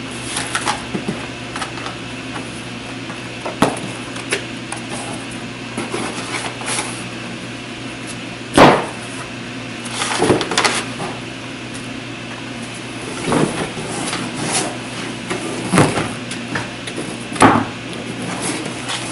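Tractor cab upholstery panels being handled: lifted out of a cardboard box and set down on a table. Scattered soft thumps and rustles, the loudest about eight and a half seconds in, over a steady low hum.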